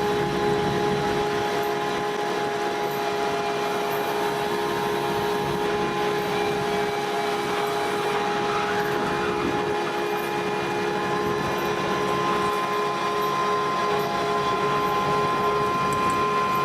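Steady drone of running machinery, several held tones over a noisy wash, with no change in level.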